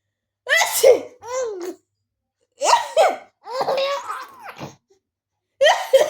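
A woman sneezes about three times, a couple of seconds apart. A small child laughs in high-pitched bursts between the sneezes.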